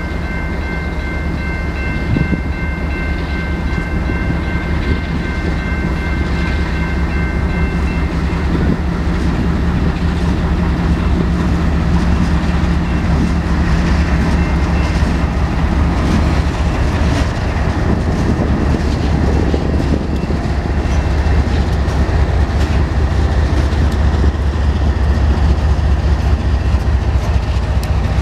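Canadian Pacific freight train's diesel locomotives rumbling past a level crossing, growing louder as they go by, with wheels clacking over the rails. The crossing's electronic bell rings at first.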